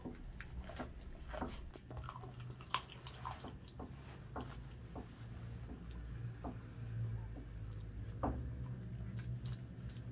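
Dachshund chewing raw chicken: irregular wet crunching and clicking, a few snaps a second, with sharper ones about three seconds in and again near eight seconds.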